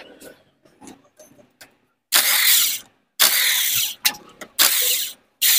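Power ratchet wrench spinning out the clutch spring bolts of a Honda Twister's clutch in four short bursts, starting about two seconds in, after a couple of seconds of light metal clicks and taps.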